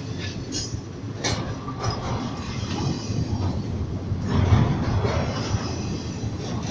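Freight train rolling past: a steady low rumble of wheels and cars, with a few sharp knocks from wheels over rail joints in the first two seconds, growing louder about four seconds in.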